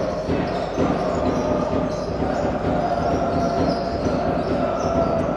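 Indoor basketball game: a ball bouncing on the hardwood court over steady noise of the hall.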